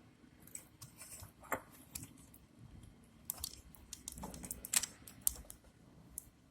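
Irregular light plastic clicks and taps from a computer keyboard being handled, with the sharpest clicks a little before and after five seconds in.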